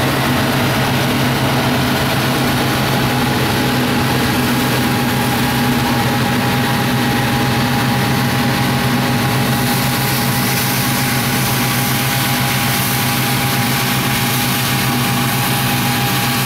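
Deutz-Fahr StarLiner 4045H combine harvester running steadily while threshing grain: a constant engine and machinery drone with a steady hum.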